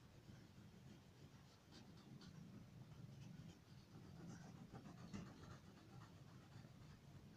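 Faint scratching and rubbing of a yellow crayon stroked back and forth across paper while colouring in.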